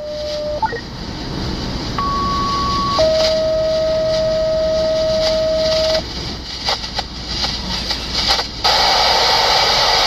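Radio scanner playing a two-tone sequential page, the kind of dispatch tone-out that sets off sirens. A higher tone lasts one second and is followed by a steady lower tone held for three seconds. Near the end comes a loud burst of radio static hiss.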